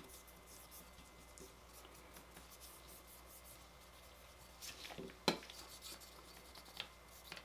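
Faint rubbing and scraping of a cotton swab worked over an AR-15 charging handle, with a sharp click a little past five seconds in and a lighter one about a second and a half later.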